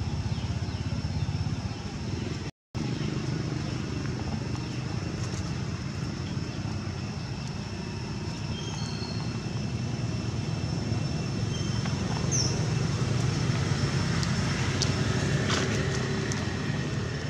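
Steady low rumble of outdoor background noise, broken by a brief dropout about two and a half seconds in.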